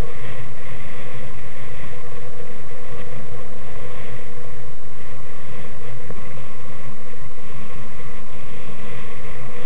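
A moving vehicle's steady engine hum and road noise, with no change in pitch or level.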